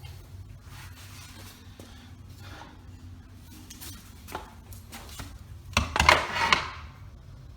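Light knocks and handling noises of wooden and laminate pieces, with a short louder clatter of several quick knocks about six seconds in.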